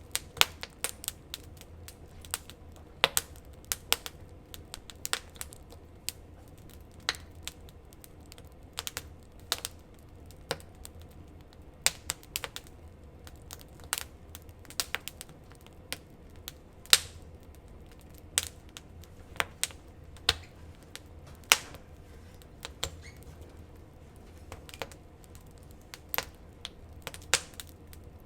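Wood campfire crackling: irregular sharp pops and snaps from the burning wood, sometimes several close together, over a faint low rumble.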